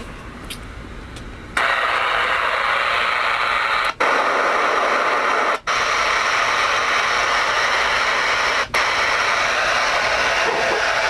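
CB radio receiver static, a loud steady hiss from the CRE-8900's speaker with the squelch open, switching on suddenly after a second and a half and cutting out briefly three times.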